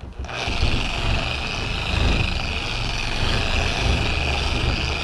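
Dual-action car polisher starting up and running steadily with a constant high whine, working fast correcting cream on a pad to cut out 1500-grit wet-sanding marks.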